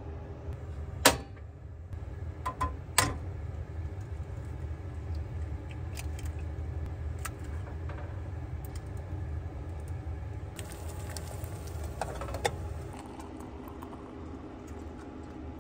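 Breakfast cooking on a propane camp stove: sharp clinks and clatters of metal cookware, the loudest about a second and three seconds in, and a hissing stretch about ten seconds in, over a steady low hum.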